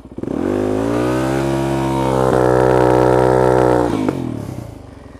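Dirt bike engine revved up hard about a second in and held at high revs, climbing slightly, for about three seconds, then dropping off sharply near the end.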